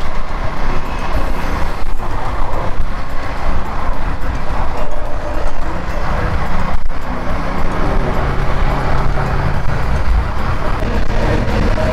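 A KTM 390 Duke's single-cylinder engine running in fifth gear at cruising speed, under heavy wind rush on the microphone. The engine picks up a little speed toward the end.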